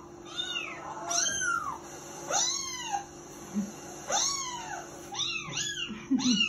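A run of high-pitched kitten mews, each rising then falling in pitch. They come about once a second at first and crowd together quickly in the last second and a half.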